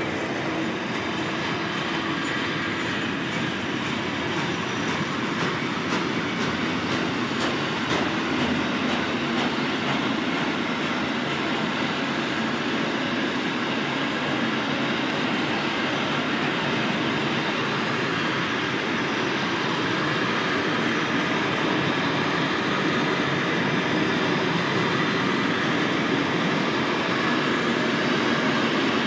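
Container freight train's wagons rolling past: a steady, even rumble of steel wheels on the rails.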